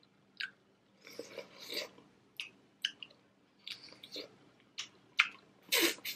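Close-up eating sounds of boiled crawfish: wet sucks, slurps and lip smacks as a crawfish is sucked and chewed. They come as a string of short, sharp wet clicks with a couple of longer slurps, about a second in and near the end, the loudest near the end.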